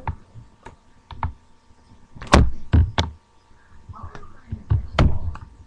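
Irregular knocks and thumps, about half a dozen. The loudest come a little past two seconds in and again about five seconds in.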